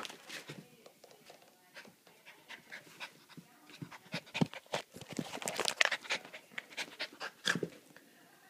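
Havanese puppy panting and licking in quick, irregular breaths close to the microphone, busiest in the middle, after a short sharp bark right at the start.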